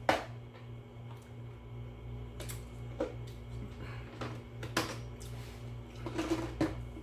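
A few light, scattered clicks and knocks over a steady low hum, like tableware being handled at the table after a meal.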